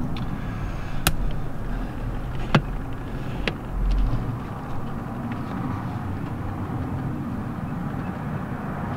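Steady low rumble with three light, sharp clicks in the first few seconds, like a handheld camera being moved about in a car's footwell.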